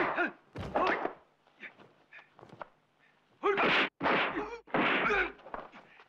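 Kung fu fight sound effects: thwacking punch and kick impacts mixed with the fighters' shouted cries, in short bursts. After a brief lull, three loud bursts come back to back in the second half.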